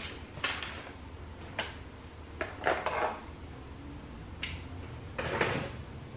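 Clothes being handled off a hanger: several short hard clacks of the hanger, mixed with rustling of fabric and the paper shopping bag. The loudest rustle-and-clack bursts come near the middle and shortly before the end.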